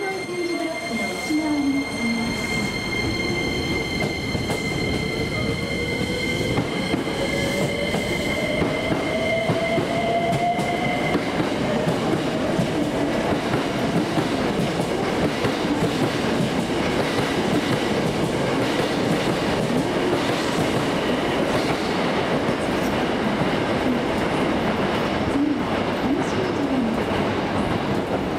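Hankyu 9300 series electric train pulling away: a motor whine climbs in pitch over about the first ten seconds alongside steady high tones. Then the loud rolling noise of wheels on rails takes over, with short squeals.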